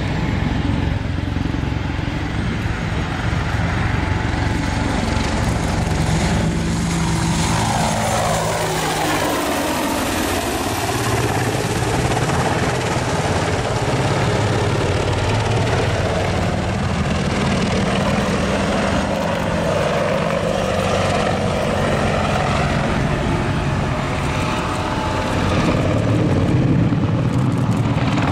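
AH-64D Apache Longbow attack helicopter flying a display pass: the steady beat of its main rotor with the whine of its twin turboshaft engines. The pitch falls sharply as it passes by, about eight seconds in, and the sound grows louder near the end as it banks in close.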